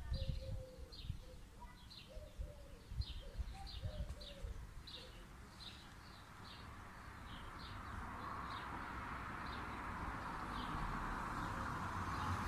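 Birdsong: a small bird repeats a short, high chirp about twice a second, and a dove coos low during the first few seconds. From about halfway, the rushing sound of an approaching vehicle builds up and grows louder toward the end.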